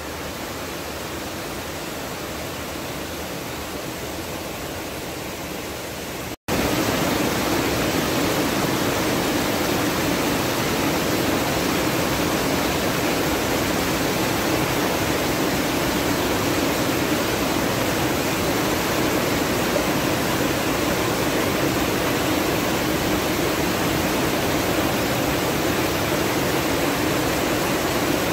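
Rushing water of a mountain stream pouring over rocky cascades and a waterfall: a steady rush of white water that jumps louder about six seconds in.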